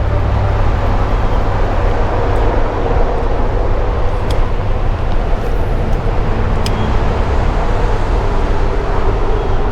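Steady highway traffic noise: a continuous rumble of cars passing on the road overhead, with no single vehicle standing out.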